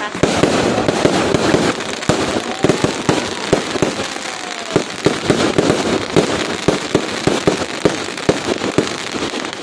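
Fireworks going off in a dense, rapid barrage of sharp bangs and crackling, many per second, easing off near the end.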